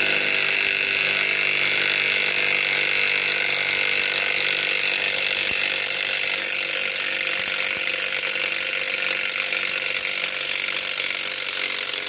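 Flex FX1451 cordless impact wrench running steadily in reverse, hammering continuously as it backs a long lag screw out of wood.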